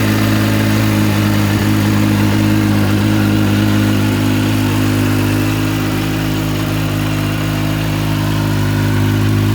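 Benelli Tornado Tre 900's inline three-cylinder engine idling steadily, just started after standing unused for over three years.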